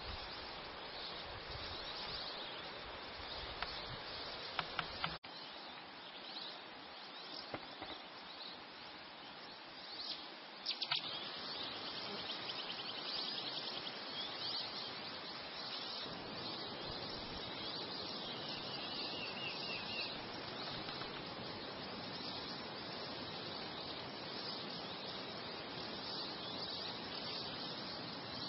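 Faint outdoor ambience: insects chirping steadily over a low hiss. There is a short higher trill near twenty seconds, and a few sharp clicks around five and eleven seconds in.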